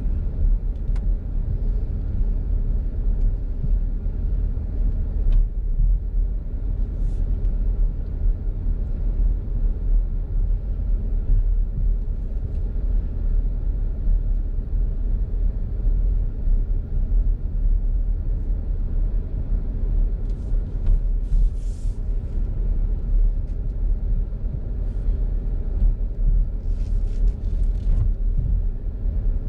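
Car cabin road noise while driving on a paved road: a steady low rumble of engine and tyres, with a few faint short crackles about two-thirds of the way in and near the end.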